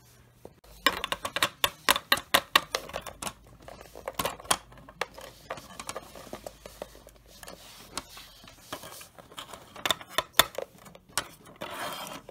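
Small plastic Littlest Pet Shop figures tapped against a wooden floor as they are hopped along by hand: quick runs of light clicks, thickest in the first few seconds and again about ten seconds in.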